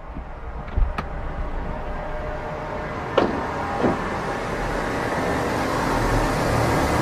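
Car doors: a latch click just under a second in, then two doors shutting a little over half a second apart about three seconds in, over background noise that slowly grows louder.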